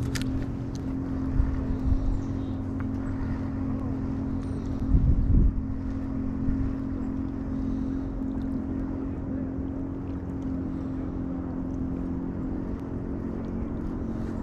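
Steady low engine-like drone holding several pitches, with a brief louder low rumble about five seconds in.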